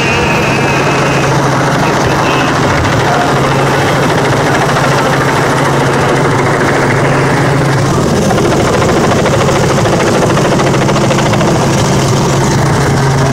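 Small helicopter flying low overhead, its rotor and engine running in a loud, steady drone with a constant low hum.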